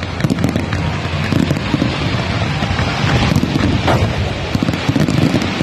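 Large fireworks display with many shells and fountains firing at once, a dense, continuous rumble of bursts with crackling on top.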